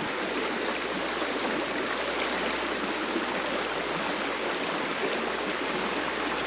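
Creek water running over a shallow riffle: a steady rushing.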